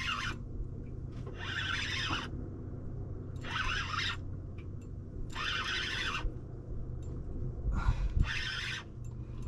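Fishing reel ratchet buzzing in five short bursts about two seconds apart, as a fish on the rod takes line.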